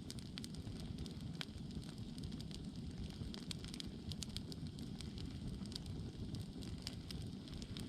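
Wood campfire burning: irregular sharp pops and crackles, several a second, over a low, steady rumble.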